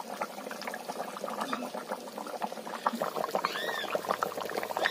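Fish curry bubbling in a pan over a wood fire, a steady run of small pops and crackles. Two short calls from an animal, each rising then falling in pitch, come about three and a half seconds in and again at the end.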